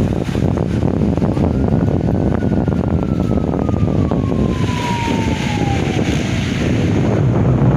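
Wind buffeting a phone microphone, a loud, steady rumble. Over it, a thin high whine slides slowly down in pitch for about five seconds before fading out.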